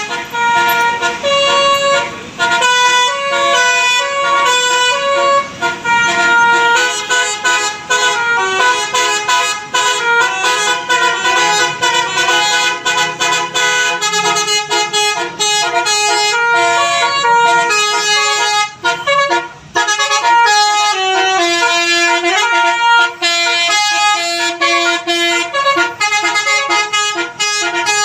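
Bus telolet musical air horn playing a fast melody of clear stepped notes, tune after tune, with a few short breaks.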